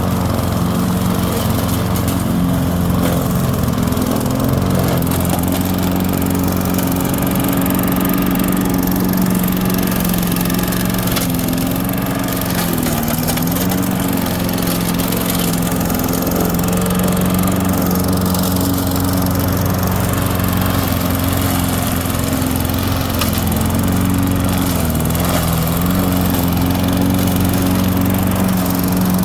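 Poulan Pro walk-behind lawn mower's 150 cc Briggs & Stratton engine running steadily, now that its carburetor has been cleaned. The engine speed sags briefly twice, about halfway through and again near the end.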